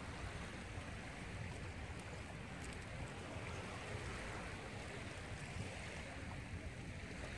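Steady outdoor noise of wind on the microphone and small waves washing onto a sandy beach, with a low rumble throughout and no distinct events.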